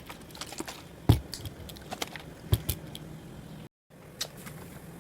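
Irregular sharp clicks, knocks and clinks of small hard objects being handled, over a faint steady low hum. The sound cuts out completely for a moment near the end.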